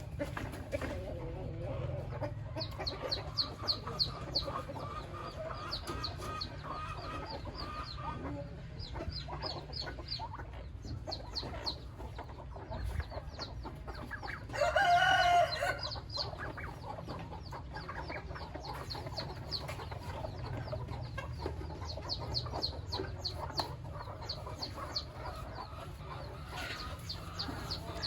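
Chickens clucking, with rapid high ticking runs throughout. A rooster crows once, loudly, about halfway through.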